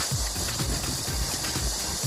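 Music with a steady low beat, over a continuous rushing hiss typical of a valley stream.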